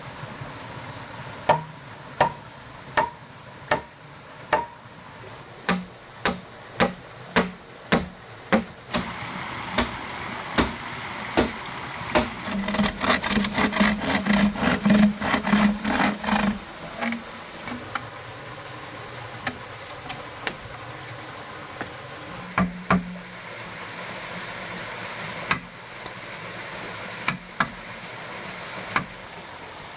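A string of sharp blows struck into bamboo, about one every 0.7 seconds, over the first several seconds. Then a hand saw cuts through a green bamboo pole in quick strokes for about four seconds around the middle, followed by scattered knocks and light scraping on bamboo. A stream runs steadily underneath.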